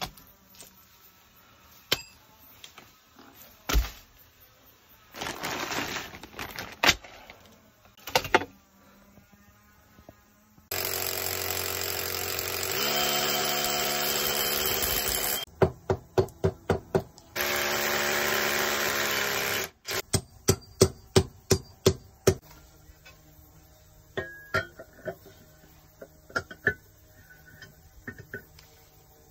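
A power tool runs steadily in two bursts of a few seconds each, the first shifting pitch partway. Quick runs of sharp knocks come between and after the bursts, among scattered knocks and clicks of installation work.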